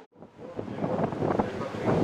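The sound cuts out for a moment, then the rumble and clatter of a Keisei Line train build back up, with wind buffeting the microphone.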